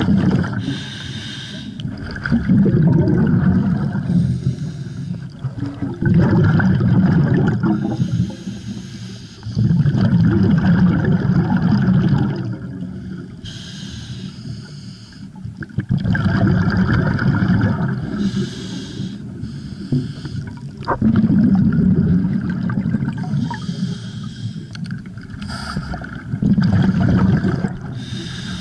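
A scuba diver breathing underwater through a regulator, a regular cycle of about seven breaths: a hiss on each inhale, then the bubbling rumble of exhaled air, about every four seconds.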